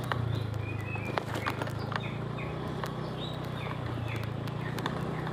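Motorcycle engine running steadily at low speed on a rough dirt forest road, with scattered clicks and knocks as the bike goes over the bumps.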